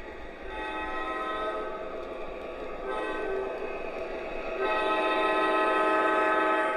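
Electronic train horn from an MTH O-scale model locomotive's sound system, sounding a long blast, a short one and a final longer, louder blast. Together with the long blast just before, this is the long-long-short-long grade-crossing signal.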